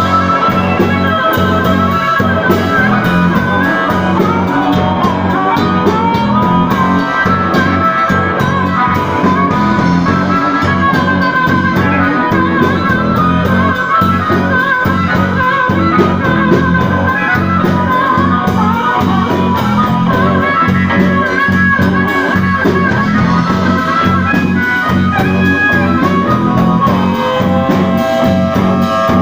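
A live blues band playing an instrumental passage: guitar lines over a steady bass and drum beat.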